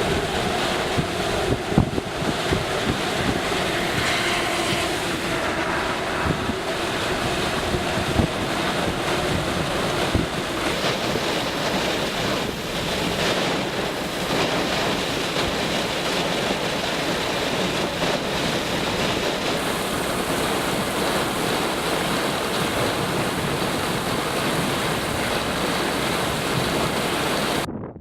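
Strong wind and heavy rain as a steady rushing noise, with wind buffeting the microphone. A faint hum fades out in the first few seconds.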